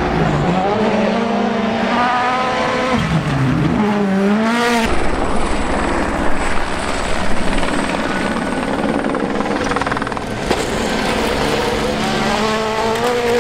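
Rally1 cars at speed on a gravel stage, their turbocharged four-cylinder engines revving hard and dropping back in quick throttle lifts and gear changes, in short clips joined by abrupt cuts, one about five seconds in.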